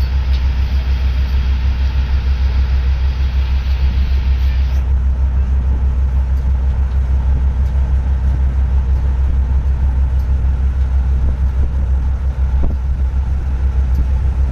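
A loud, steady low rumble with a fine flutter, like an engine running or wind on the microphone.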